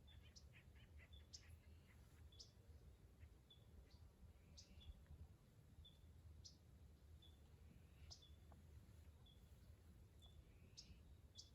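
Near silence, with faint short high bird chirps repeating every second or two over a low background rumble.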